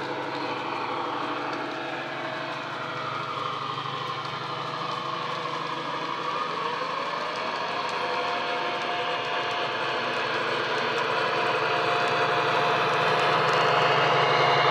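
Recorded Class 70 diesel locomotive sound from a model train's DCC sound decoder playing through its on-board speaker: the engine runs steadily with held tones, and about halfway through a whine rises in pitch and holds. The sound grows louder as the model approaches.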